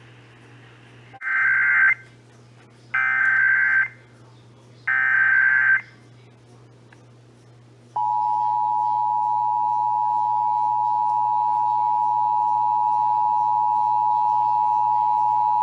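Emergency Alert System broadcast tones: three short bursts of SAME digital header data, a harsh warbling data sound about a second each, then from about eight seconds in the steady two-tone EAS attention signal. This is the start of a station's relay of the Required Monthly Test.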